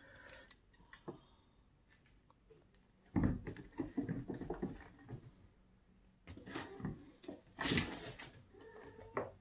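Kittens playing close by: a few bursts of scuffling and rustling. The longest starts about three seconds in, and shorter ones follow around six and a half and eight seconds.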